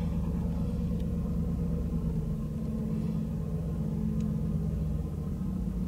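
2007 Jeep Grand Cherokee's 4.7 V8 idling steadily, heard from inside the cabin. It is on its fast idle after starting, a little over 1,000 rpm and easing down, running steady now that the throttle position sensor has been replaced.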